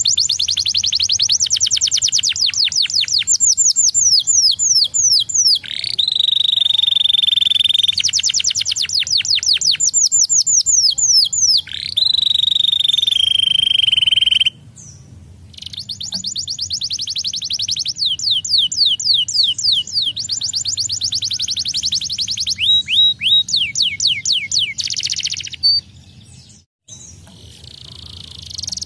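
Domestic canary singing: fast trills of rapidly repeated sweeping notes, broken by long held whistled notes that sink slightly in pitch. The song drops away briefly about halfway and again near the end.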